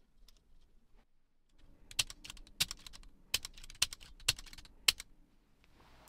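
A run of a dozen or so sharp, light clicks and taps, starting about two seconds in and stopping about a second before the end, as hands work on the radio-cassette's metal tape mechanism and boards.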